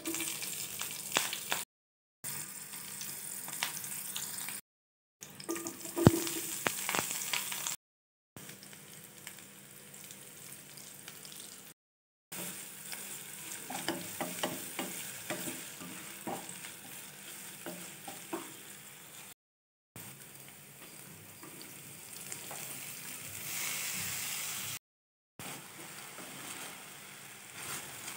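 Hot oil sizzling in a pan as a tempering of dals and chillies, then sliced onions, then shredded flat beans fry, with a wooden spatula stirring and knocking against the pan, one sharp knock about six seconds in. The sizzle drops out to silence for a moment several times.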